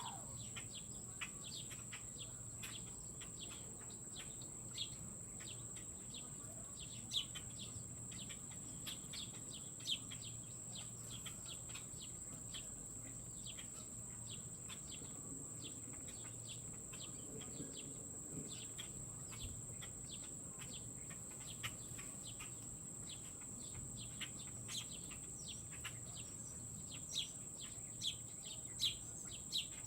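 Small birds chirping at a feeder: many short, quick chirps scattered throughout, over a steady high-pitched whine.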